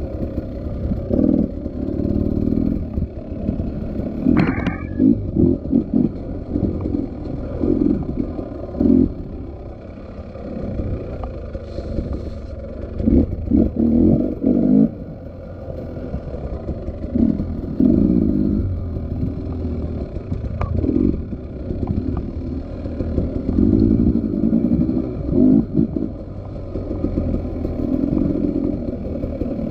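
Motorcycle engine on an off-road ride, revving in uneven bursts as the throttle is worked, with a sharp knock about four and a half seconds in.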